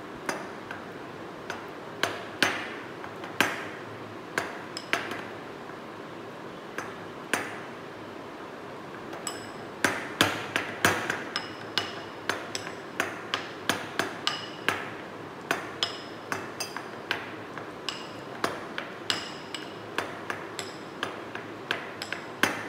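Ceramic pestle knocking and grinding in a ceramic mortar while mashing ripe banana: irregular sharp knocks, each with a short ringing, coming faster from about halfway through.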